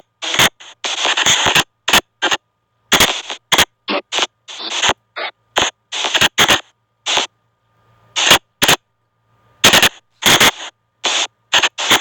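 Spirit box app on a phone sweeping through rapid, choppy bursts of static and clipped radio-like fragments, each cut off sharply with short silences between.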